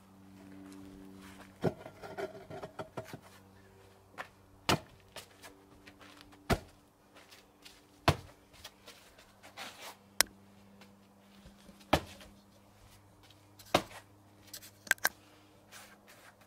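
Sharp, irregular knocks and scuffs of a concrete patio slab being stepped on and pressed down onto its bed, roughly one every one to two seconds, over a faint steady low hum.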